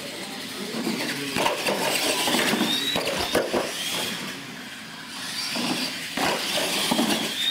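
Radio-controlled monster trucks racing on a concrete floor: a high motor and gear whine that rises and falls with the throttle, over tyre noise and scattered knocks and clatter as the trucks bounce over the ramps.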